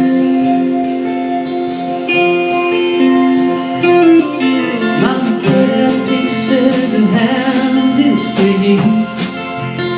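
Country band music, an instrumental passage: acoustic guitar under held notes, then sliding, bending lead notes in the style of a steel guitar.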